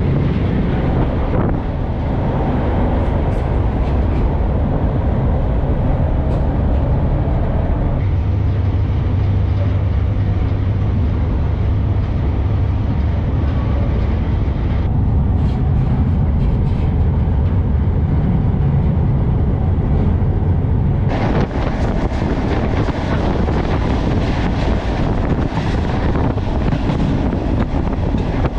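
Wind blasting across the microphone of a camera riding on the outside of a moving freight train, over the steady low rumble of the train running on the rails. About 21 seconds in, the wind hiss turns suddenly brighter and stays so.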